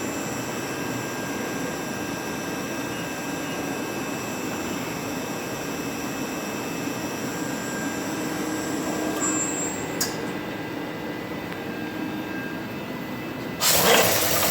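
CNC vertical mill running: a steady machine hum with a high electrical whine. About ten seconds in there is a click and the high whine stops. Near the end a loud rattling burst starts.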